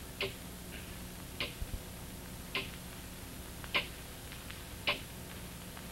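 A clock ticking slowly and evenly, about one tick a second, over a faint steady hum.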